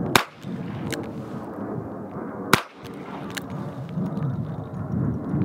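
Two shots from a Rock Island Armory AL22 .22 Long Rifle revolver, about two and a half seconds apart, in slow aimed fire. Each is a sharp crack, followed a little under a second later by a faint tick.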